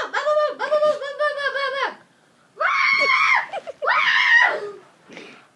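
A child laughing in rapid high-pitched bursts, then two short high squeals.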